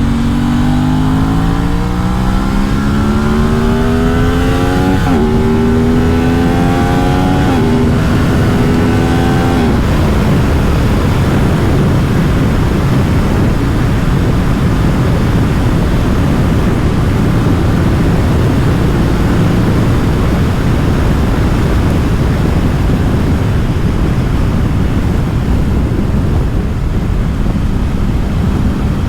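Aprilia RS 660's parallel-twin engine accelerating hard, its pitch rising and dropping with three quick upshifts in the first ten seconds. After that it holds a steady speed, the engine faint under loud wind rush.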